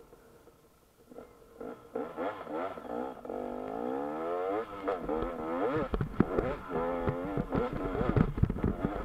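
KTM EXC 250 dirt bike engine revving under throttle on a trail climb, its pitch rising and falling, coming in about a second and a half in. From about halfway on it gets louder, with knocks and thumps from the bike over rough, muddy ground.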